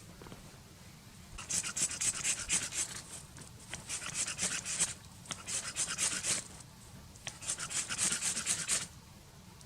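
Hand saw cutting through a stick of wood in four bursts of quick rasping strokes, with short pauses between them.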